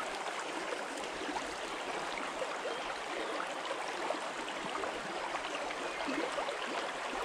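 Small stream babbling steadily over a shallow, stony riffle.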